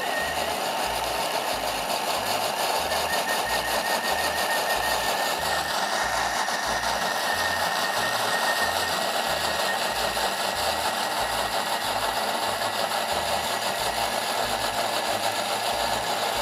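A Thermomix TM6 blending a rempah spice paste of chillies, shallots, galangal, turmeric, candlenuts, shrimp paste and lemongrass in oil: a steady motor whirr with the blade chopping the paste fine.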